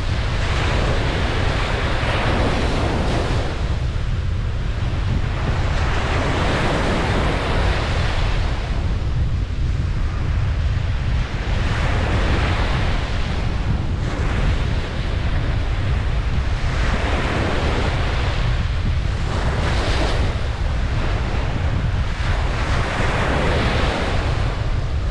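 Ocean surf breaking on a beach. Each wave swells and washes out every few seconds over a steady low rumble of wind on the microphone.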